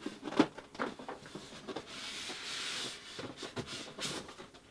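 Packaging being handled while unboxing an iMac: a series of light knocks and taps, with a rubbing scrape about two seconds in, as packing pieces are pulled from the cardboard box.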